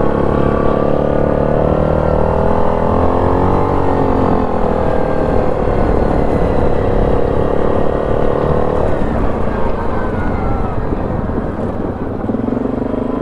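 ATV engine running under way, its pitch dipping and rising with the throttle, then holding steady before easing off about nine seconds in.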